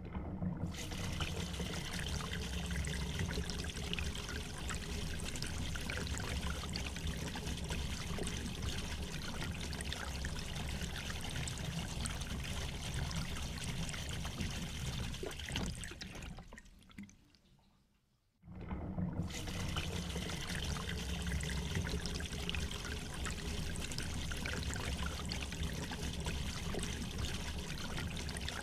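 Steady trickling, rushing water noise. It fades away around the middle, then cuts back in suddenly.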